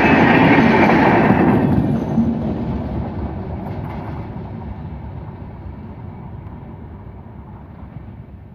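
Indian Railways express passenger train's coaches rolling past on the rails, loud for the first second or two, then fading steadily as the last coach goes by and the train draws away.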